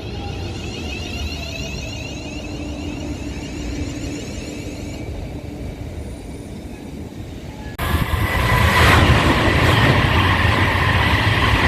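Train running past on the main line with a steady rumble. About eight seconds in, the sound jumps suddenly to a louder, closer train passing, with a steady high ring over the noise.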